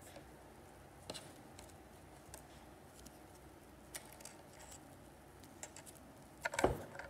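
Small scattered clicks and light rustles of sequin- and bead-embroidered fabric petals handled between fingers, with a louder knock near the end.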